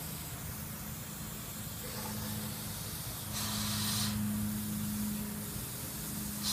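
Airbrush spraying paint: a hissing burst about three seconds in that lasts under a second, and a brief puff at the very end, over a steady low hum.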